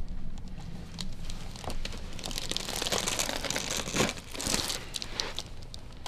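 Rustling and rubbing as hands knead the upper back and shoulders through a shirt on a padded treatment table, with a few soft clicks among the rustle.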